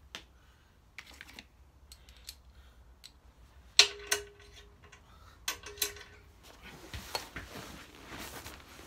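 Metal hand tools clinking, in two quick pairs of sharp clinks, each with a brief metallic ring, about four and five and a half seconds in. After that comes shuffling and rustling as tools and parts are handled.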